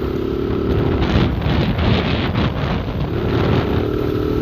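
Motorcycle engine running at a steady note while riding, under heavy wind noise on the camera's microphone. The engine tone drops away for about two seconds in the middle, then comes back.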